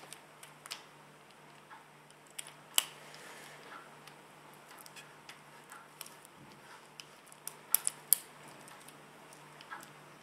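Plastic Super Floppy Cube puzzle being turned rapidly by hand: irregular light clicks and clacks as its layers are twisted. A sharper clack comes about three seconds in, and a quick cluster of three comes around eight seconds in.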